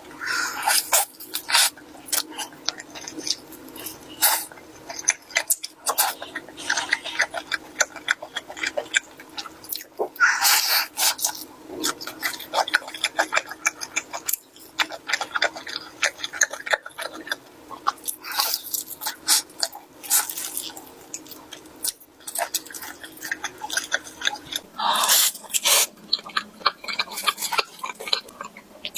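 Close-miked eating sounds: a person chewing food, with many crisp crackles, and a few louder, longer mouth sounds about ten seconds in and near the end.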